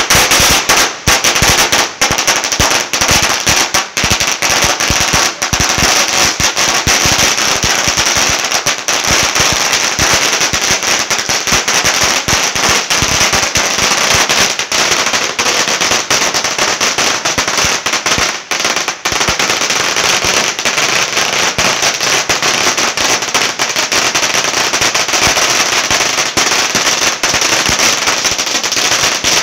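A long string of firecrackers hung from a pole going off in a dense, rapid, unbroken crackle of sharp bangs, starting suddenly as the fuse takes.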